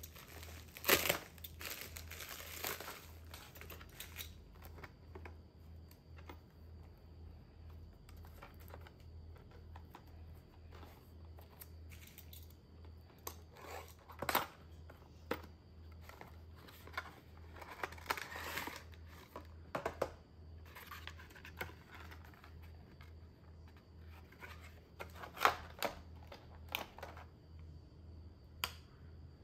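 Packaging being opened by hand: a plastic mailer bag crinkled and torn open, then a cardboard box and a clear plastic case handled. It comes as scattered bursts of rustling, crinkling and tearing with quieter gaps between, the loudest about a second in.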